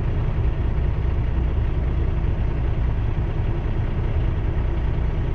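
Semi-truck's diesel engine idling with a steady low rumble, heard from inside the cab, while a long freight train's cars roll past the crossing.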